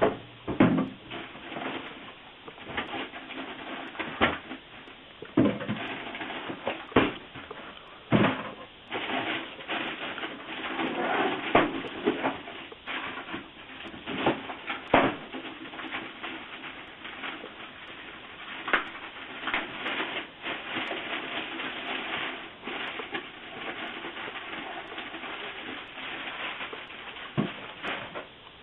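Rustling and crinkling of packaging as a small PC case is handled, with scattered clicks and knocks of cardboard and parts being moved.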